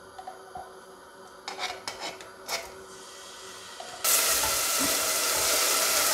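A few light scrapes and clicks of a utensil against a bowl and stainless steel pot, then, about four seconds in, a sudden loud steady sizzle as chopped onion and garlic fry in hot olive oil.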